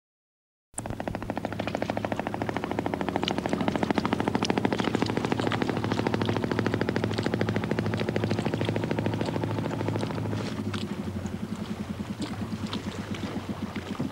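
Small open wooden motorboat's engine running with a rapid, even putt-putt. It starts abruptly under a second in and grows a little fainter in the last few seconds.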